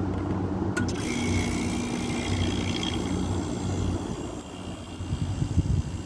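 Vintage Fedders 4000 BTU window air conditioner running, its compressor giving a steady low hum over the rush of its fan, with one light tap on the cabinet about a second in. The compressor is judged by its sound to be a Rotorex.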